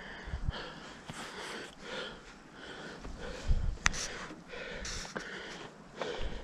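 Heavy breathing: a run of quick breaths, about one to two a second, with a sharp click and a low thump about three and a half seconds in.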